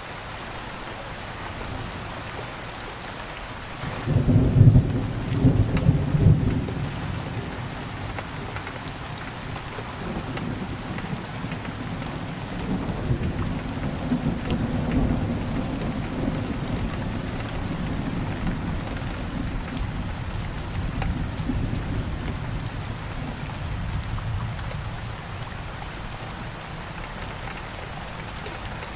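Heavy rain on a window, falling as a steady hiss. A loud low clap of thunder breaks in about four seconds in and lasts a couple of seconds, and more thunder then rolls on more quietly for some fifteen seconds.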